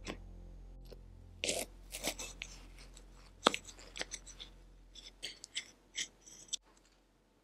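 Table knife cutting through the crisp baked pastry crust of a small apple hand pie on a ceramic plate. It makes a series of short crunches and scrapes, with one sharp click about three and a half seconds in. The cutting stops shortly before the end.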